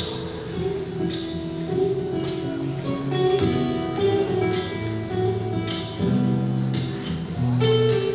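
Acoustic guitar played live through a small Fender acoustic amplifier: a melody of picked notes and chords that ring on.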